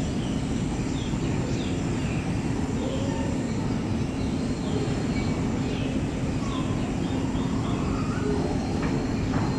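Recorded rainforest soundscape played over loudspeakers in a long walkway tunnel: scattered bird chirps over a steady rushing noise and a low hum.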